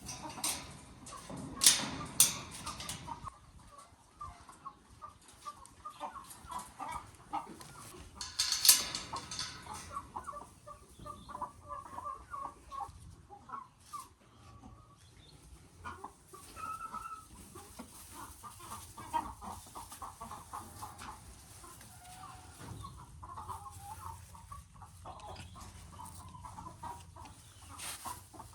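Chickens clucking, with many short calls throughout. Two louder, sharp scratchy noises come about two seconds in and about nine seconds in.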